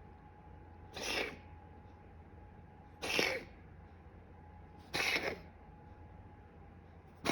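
Domestic cat coughing: four short, breathy coughs about two seconds apart, the last right at the end.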